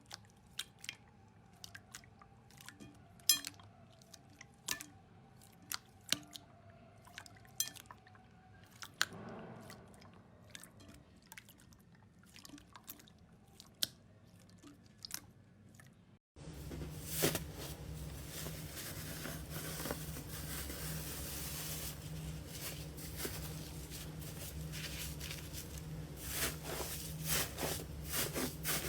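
Slime being squeezed and pressed by hand, giving scattered sharp crackles and pops. About 16 seconds in it cuts to a louder take with a steady low hum underneath and denser crackling and squishing.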